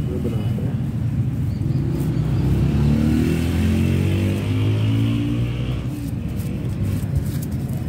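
Steady rumble of street traffic, with a motor vehicle's engine revving up, its pitch climbing, from about three to six seconds in.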